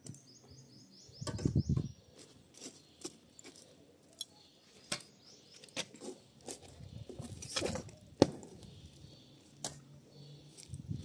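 A small bird twitters in a quick run of high notes at the start, among scattered clicks, knocks and low rustling.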